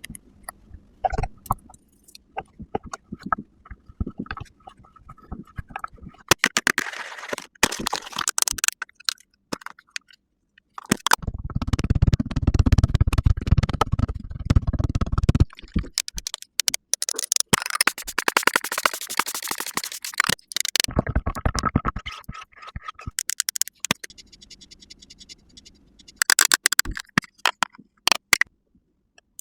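Close-miked ASMR makeup sounds: scraping, tapping and rasping from makeup tools and products worked on a mannequin head, in irregular bursts with short pauses.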